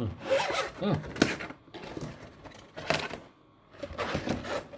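Stiff plastic panels of a flat-pack folding shoe rack being handled and folded, clattering and clicking irregularly, with a few sharper snaps.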